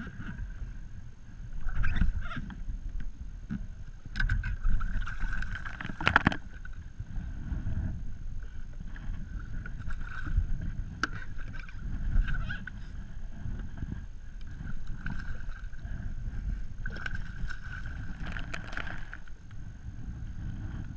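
Wind buffeting an action camera's microphone and water sloshing against a fishing kayak, with louder gusts and splashes coming and going while a snapper is played to the boat.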